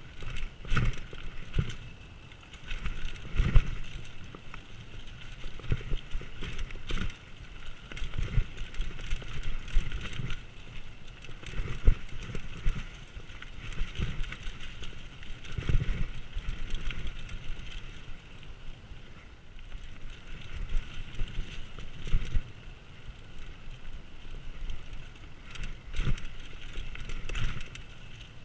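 Mountain bike rattling over rough dirt singletrack: tyres on dirt and rock, with frequent knocks and clatter as the bike jolts over bumps.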